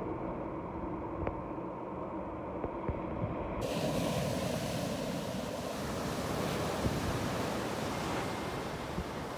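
Ocean surf breaking and washing around shoreline rocks, with some wind on the microphone. About three and a half seconds in the sound suddenly turns brighter and fuller.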